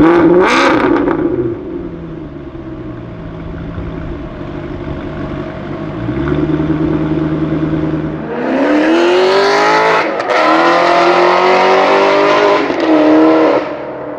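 Modified Maserati Quattroporte engine and exhaust: a quick rev at the start, then running steadily. From about eight seconds in it accelerates hard with a rising pitch, broken briefly by a gear change, and climbs again until it lets off near the end.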